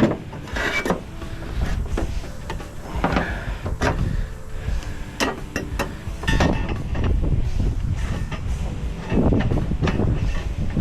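Irregular clicks, knocks and scraping from hand dismantling of a PTAC air-conditioner unit: metal parts and wiring being pulled and handled, over a steady low rumble.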